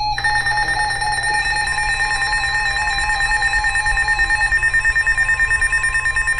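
Electronic emergency alert tone from a weather radio broadcast: a loud, steady, shrill tone that switches on sharply, with a lower wavering tone beneath it, and takes on a rapid pulsing flutter in its second half.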